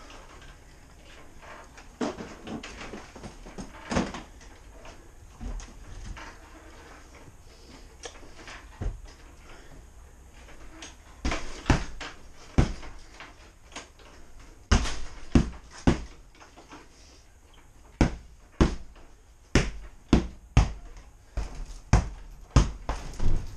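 Repeated sharp strikes on a small hanging punching bag. They come singly and far apart at first, then settle into a steady run of about one or two a second from about eighteen seconds in.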